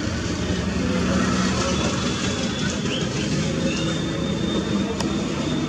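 Steady low rumble of motor-vehicle traffic, with a faint high chirp or two.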